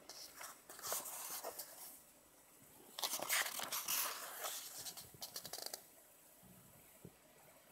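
Paper pages of a paperback book being leafed through by hand, rustling and flapping in two bursts: one about a second in and a longer one from about three to six seconds.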